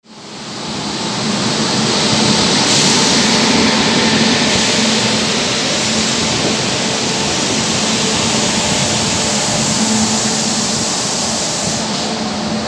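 Passenger train pulling out of a station: a steady noise of the moving coaches and wheels on the rails, with a faint steady hum under it. It rises from silence in the first second or so.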